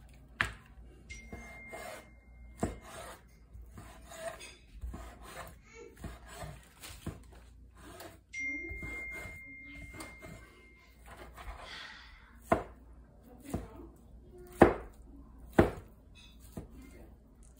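Chef's knife slicing deli ham on a plastic cutting board: soft rubbing, sawing strokes with scattered light taps, then several sharp knocks of the blade on the board near the end as the ham is diced.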